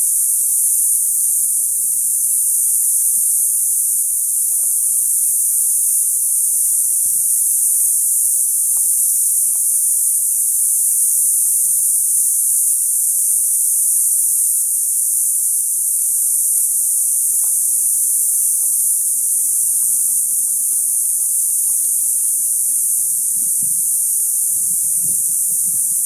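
Cicadas singing in chorus: one steady, high-pitched buzz that holds at an even level.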